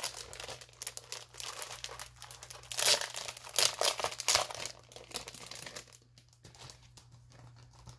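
Loose sheets of planner paper rustling and crinkling as they are handled and shuffled over the planner. The crinkles are loudest in a few bursts between about three and four and a half seconds in, and grow quiet near the end.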